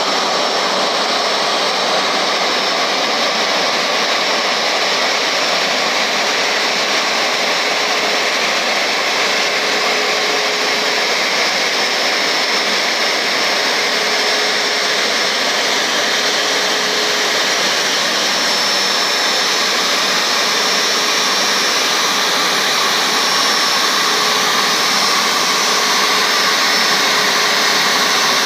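Airbus A350-900's Rolls-Royce Trent XWB jet engines running at taxi idle: an even rush with a steady whine. It grows slightly louder near the end.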